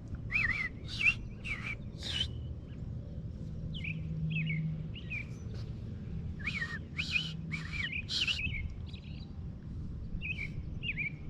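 Robin calls: short, quick chirps in clusters of three to five, with pauses of a second or two between clusters.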